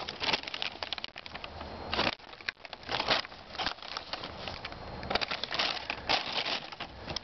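Thin plastic bag crinkling and rustling in irregular bursts as it is handled.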